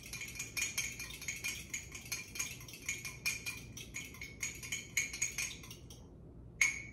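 Eggs being beaten in a mug with a metal utensil: quick, regular clinks of metal against the mug, several a second, stopping about six seconds in, then one louder clink near the end.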